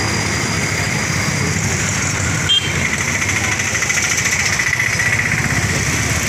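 Street traffic noise: a motor vehicle engine running close by, with voices in the background and a short click about two and a half seconds in.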